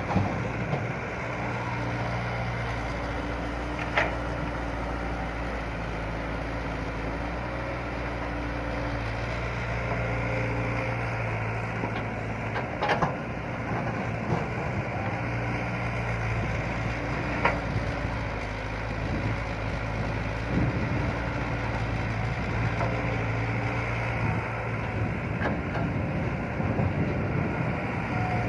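Excavator's diesel engine running steadily while digging, with a few sharp knocks.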